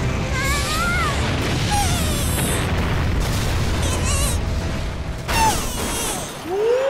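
Cartoon battle sound effects: a continuous explosive rumble with whooshing glides and a sharp crash about five seconds in as a robot is slammed down, over dramatic music.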